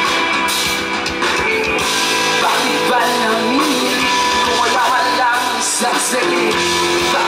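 Live rock band playing: electric guitars, bass guitar and drums, loud and steady.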